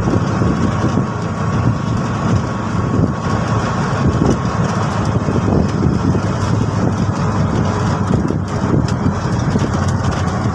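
TVS King Deluxe three-wheeler's single-cylinder engine running at a steady road speed, heard from inside the open cab together with road and wind noise.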